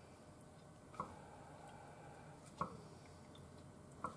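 Wooden chopsticks pushing saucy teriyaki chicken out of a stainless steel bowl into a small ceramic bowl, with the wet food sliding. The chopsticks click lightly against the bowls three times, about a second and a half apart.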